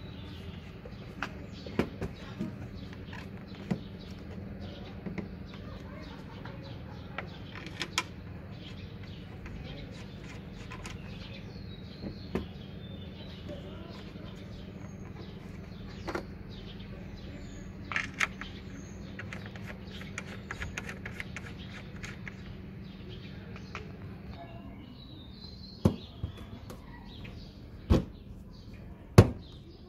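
Small clicks and taps of hands and plastic parts while a car headlight unit is being fitted, over a steady low hum. Near the end come three loud, sharp knocks as a fist thumps the headlight and surrounding bodywork.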